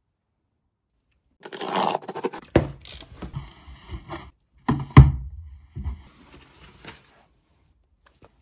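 A cardboard delivery box being opened and handled. Starting about a second and a half in, its flaps rustle and scrape, then come several knocks as the shoebox inside is moved, the loudest about halfway through.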